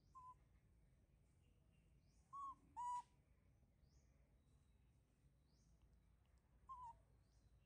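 Baby macaque giving short, high coo calls, each a quick rise and fall: four of them, two close together around two and a half to three seconds in, the second of those the loudest. Faint quick high chirps sound between them.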